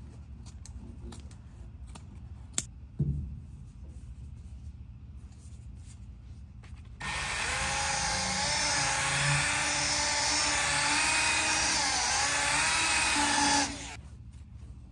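Scissors snip and click as a sanding disc is trimmed on the pad, with a couple of sharper knocks of handling. About seven seconds in, a Milwaukee cordless handheld polisher starts up and sands paint with a 2000-grit disc; its motor whine wavers in pitch as it is worked. It stops shortly before the end.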